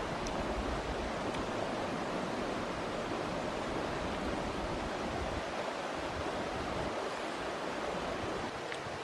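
Steady rushing outdoor background noise with no pitch, with a few faint clicks.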